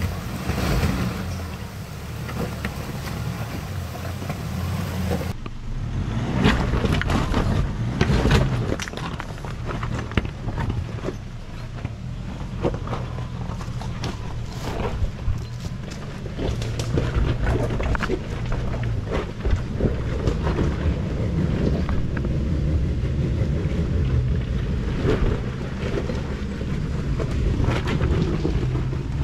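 Nissan Pathfinder R51's engine running at low revs as the 4x4 crawls over a rocky track, with tyres crunching on stones and many scattered knocks and clatters.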